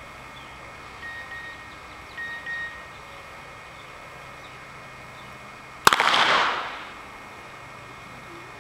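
.32 bore revolver firing a single shot about six seconds in: a sharp crack followed by an echo that fades away over about a second.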